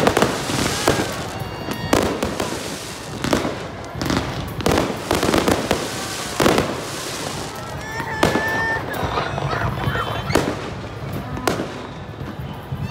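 Aerial fireworks bursting overhead in quick succession: repeated sharp bangs with crackling between them.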